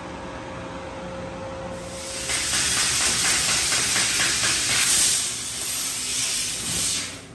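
3 kW sheet-metal laser cutting machine cutting a part: a low steady hum, then about two seconds in a loud, even hiss of the cutting head's gas jet and burning metal starts and holds, cutting off sharply at the end as the cut finishes.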